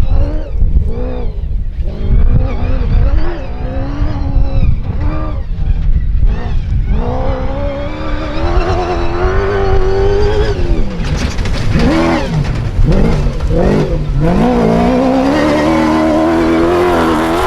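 Rally-raid car engine revving hard at full throttle, its note climbing and then dropping sharply twice near the middle, as in gear changes, before climbing again toward the end, over heavy rumble from the tyres and rough ground.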